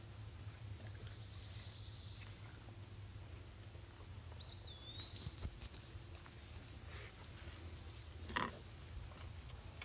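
Quiet outdoor ambience with a low steady rumble, a single whistled bird call gliding down and up about halfway through, and a brief louder sound a little over eight seconds in.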